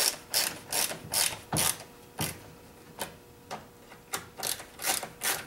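Hand screwdriver driving screws into the plastic housing of a McCulloch Mac 3516 chainsaw. Each twist gives a short clicking rasp, about two or three a second, with a brief pause near the middle.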